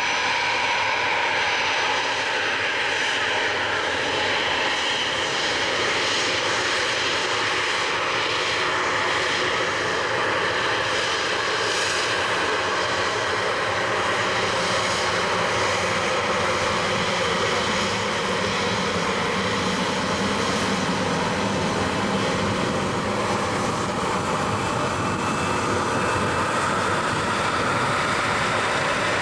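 Airbus A319 airliner's twin jet engines running at taxi power as it taxis past: a steady jet whine over a rumble.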